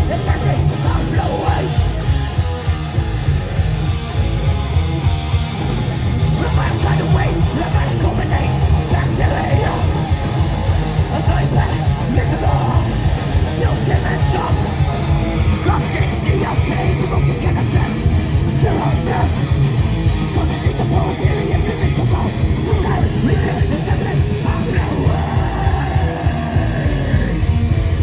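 Thrash metal band playing live at full volume: distorted electric guitars, bass and fast drums.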